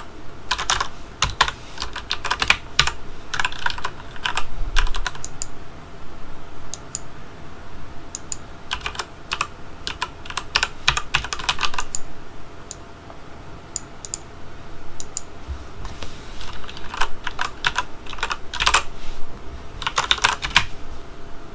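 Typing on a HyperX Alloy Elite RGB mechanical keyboard fitted with double-shot PBT keycaps. Three spells of rapid keystrokes, near the start, in the middle and toward the end, are separated by scattered single key presses.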